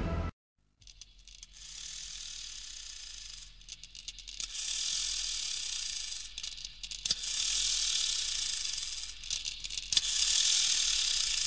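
Hissing, crackling sparkle sound effects swelling and fading about four times, the later three louder: the shimmer of a particle logo animation. Background music cuts off just after the start.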